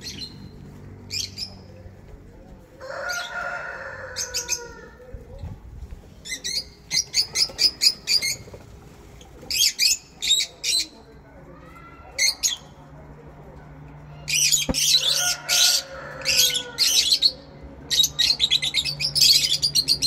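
A flock of peach-faced lovebirds chirping: repeated bursts of rapid, high-pitched chirps. Two longer, lower calls from another bird come in about three seconds in and again about fifteen seconds in.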